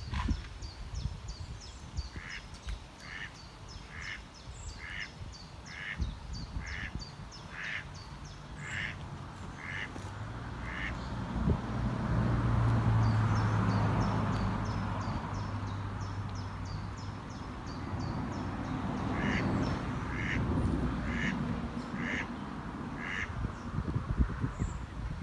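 Ducks quacking in a steady series, about one quack a second, in two runs. Between the runs a low engine-like drone swells and fades, and it is the loudest thing here.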